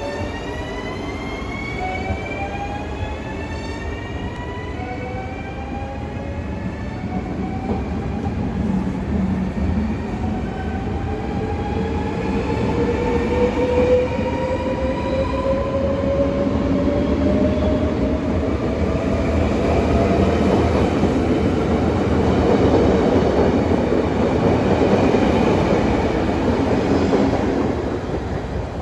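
Dutch VIRM double-deck electric intercity train (two four-car units) pulling away from a platform. The traction motors whine in several tones that rise slowly in pitch as it gathers speed, over a growing rumble of wheels on rail that gets louder as the carriages pass, easing off near the end as the last car goes by.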